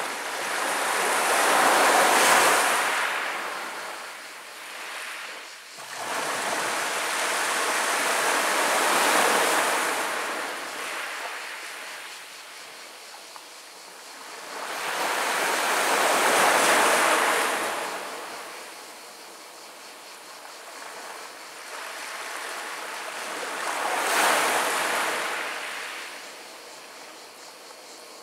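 Small sea waves washing up over a pebble beach and rolling back across the stones. The sound comes in four swells, about one every seven seconds, with a quieter wash between them.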